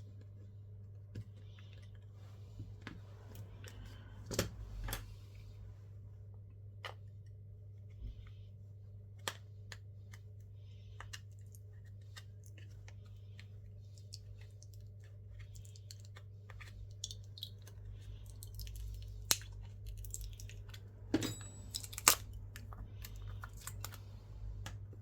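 Small, irregular clicks and taps of hand tools and parts being handled on a smartphone during a screen repair, a few of them sharper, over a steady low hum.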